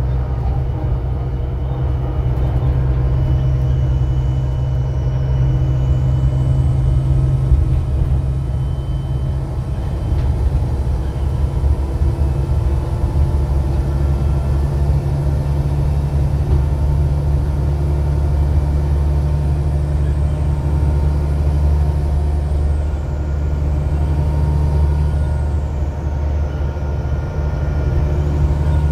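VDL DB250LF double-decker bus's diesel engine and driveline running steadily under way, heard from inside the passenger saloon: a strong low drone with a faint high whine over it. The engine note shifts about a third of the way through, then holds steady.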